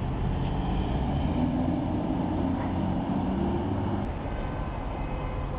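Street traffic sound effect: a steady low rumble of motor vehicles, with an engine hum rising above it between about one and four seconds in.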